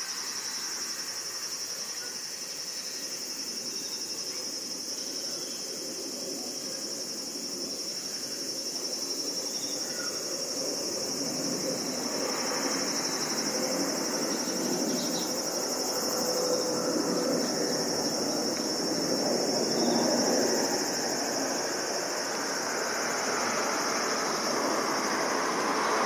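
Distant jet noise from a climbing Embraer regional jet: a broad rumble that builds from about ten seconds in and grows louder, under a steady high buzz of summer insects.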